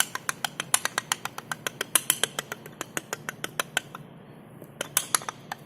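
Loose plastic centre cap on a Honda City's front alloy wheel clicking against the wheel hub as it is tapped by hand: a quick run of sharp clicks, about six a second, a brief pause, then a few more. The clicking comes from play between the cap and the hub, and it is the cause of the rattle from the front wheels on cobbled or bumpy roads.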